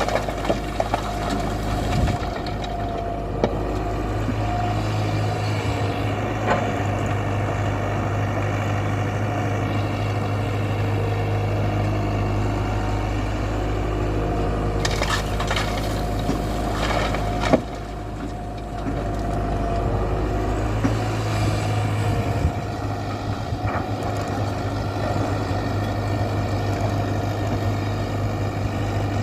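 Tata Hitachi 120 excavator's diesel engine running steadily, with occasional knocks and a cluster of harder impacts about halfway through.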